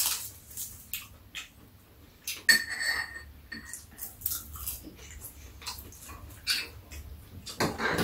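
Spoons and chopsticks clicking and scraping against bowls on a metal tray, with a brief high squeak about two and a half seconds in.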